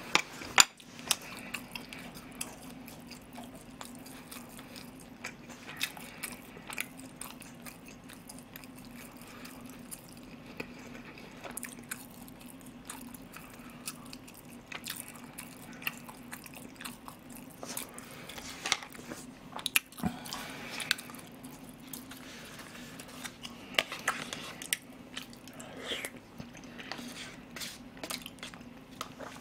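Close-miked chewing and eating of rice porridge and a side dish: wet mouth sounds with many short, scattered clicks, over a steady low hum.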